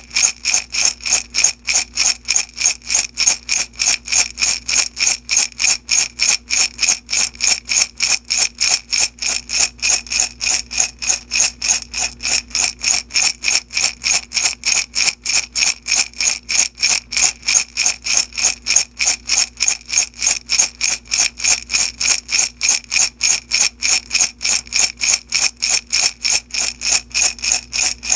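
Small beads shaken in a glass jar, rattling and clinking against the glass in a steady, even rhythm of about four shakes a second.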